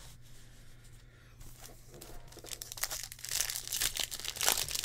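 The plastic wrapper of a baseball card pack being torn open and crinkled in the hands. It starts about halfway through after a quiet stretch and gets louder toward the end.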